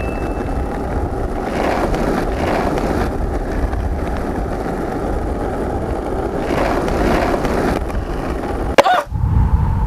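Skateboard wheels rolling steadily over concrete, ending in a short sharp scraping sound near the end.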